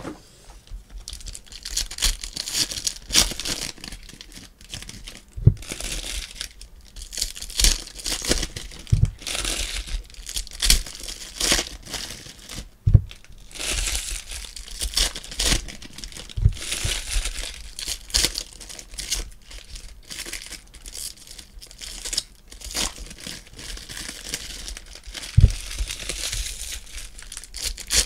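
Foil trading-card packs crinkling and rustling as they are handled, then tearing as a pack is ripped open. Sharp knocks come every few seconds.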